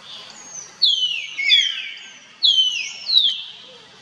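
Long-tailed macaque giving high, shrill squeals that fall in pitch, four of them in two close pairs.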